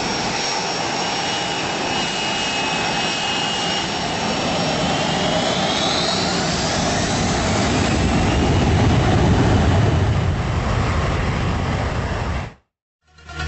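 Jet aircraft engine noise: a steady rush with a whine that rises in pitch about halfway through. A low rumble builds up toward the end, then the sound cuts off suddenly.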